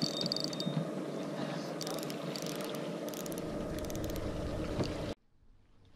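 Spinning reel's drag being set: a short buzz and then groups of sharp clicks from the drag, over a steady low hum. The sound cuts off abruptly about five seconds in.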